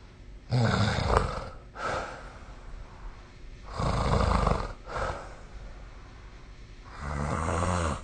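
A person snoring in their sleep: three loud snores about three seconds apart. The first two are each followed by a short, softer breath out, and the third has a low, pitched rattle.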